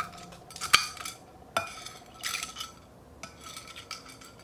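Small plastic spoon clinking and scraping against a plate while scooping soft jelly. A sharp click comes about three-quarters of a second in, followed by a few lighter taps and short scrapes.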